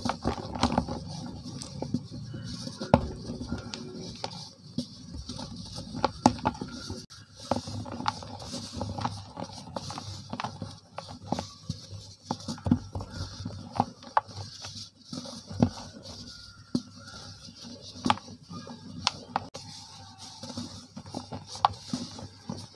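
Hands squeezing and crumbling lumps of soft dried cement: irregular crisp crunches and snaps as the lumps break, with powder pattering down between them.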